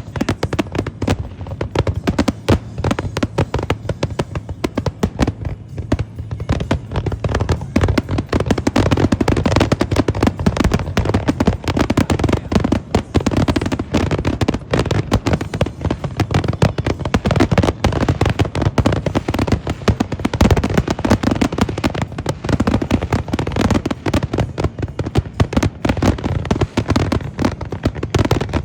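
Fireworks finale: a dense, continuous barrage of shell bursts, booms and crackling with almost no gaps, thinning slightly for a few seconds about a fifth of the way in before building again.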